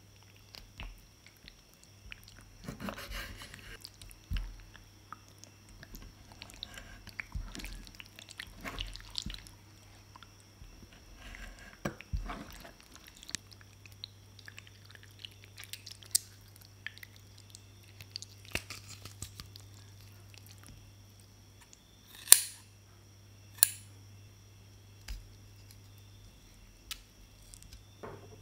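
Raw octopus being handled on a wooden cutting board: irregular wet, sticky squishing as hands pull and squeeze the slippery flesh. Two sharp clicks, the loudest sounds, come about three quarters of the way through.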